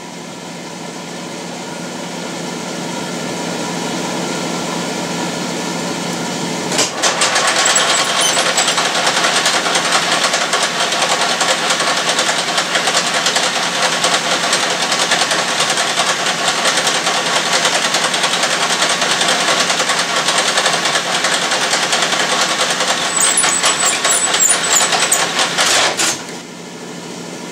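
Metal lathe running with a steady hum. About seven seconds in, a louder, rougher cutting sound joins as the tool turns down the steel shifter fulcrum pin to size. It stops about a second before the end.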